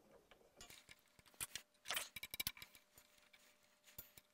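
Faint small metal clicks and taps from a wrench and screw at the handlebar clamp of a Q'Nique 16x Elite longarm quilting machine, as the clamp screw is reinstalled; a quick run of clicks comes about two seconds in.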